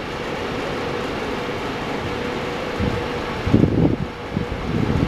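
ChS7 electric locomotive approaching: a steady whir of its cooling fans with a faint steady hum, growing slightly louder. From about three and a half seconds in, low gusts of wind buffet the microphone.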